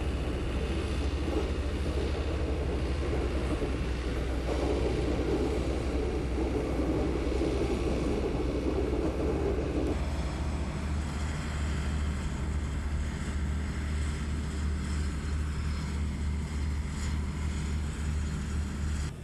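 Steady low rumble of the heavy rail transporter and its locomotive moving the upright Titan IV rocket along the tracks. A louder noisy layer over it drops off abruptly about halfway through, leaving the low hum.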